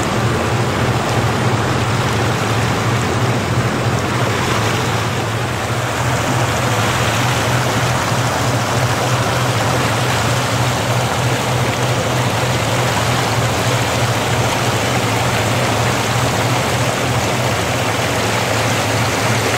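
Steady rush of churning water from a fast tidal current and boat wake, with a low, even drone underneath from a boat's engine.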